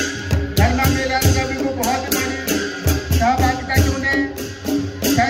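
Folk dance music for the Chholiya (Rang) dance: drums beating about three strokes a second, with rattling percussion and a bending melody line over them.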